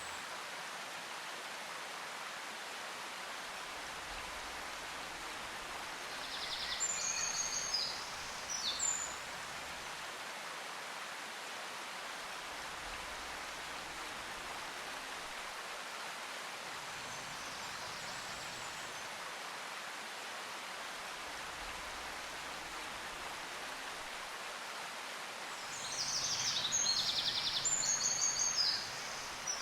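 Nature-sound recording: a steady rush like running water, with two spells of fast high bird chirping, one about a quarter of the way in and one near the end.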